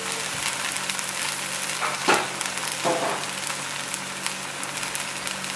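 Dried barberries sizzling in hot ghee in a frying pan: a steady frying hiss with scattered fine crackles. Two brief louder sounds come about two and three seconds in.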